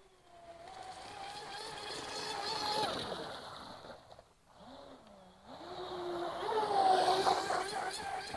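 Joysway Mad Flow F1 V3 RC speedboat's water-cooled brushless motor whining, its pitch rising and falling with the throttle, over a hiss of water spray. It swells twice, dipping and wavering low in between.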